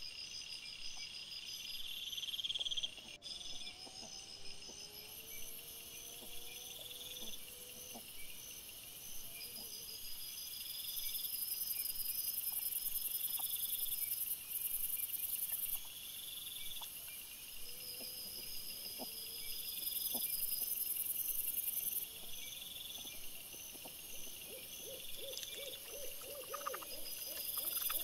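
Night insects chirping steadily in repeating pulses, sped up four times, with a few faint gliding calls in the first third and a quick run of short grunts from wild boar near the end.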